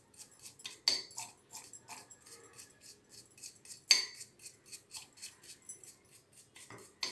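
Old toothbrush scrubbing toothpaste over a silver oil lamp's base to clean off tarnish, in quick back-and-forth strokes about four or five a second. Two louder knocks sound about one second and four seconds in.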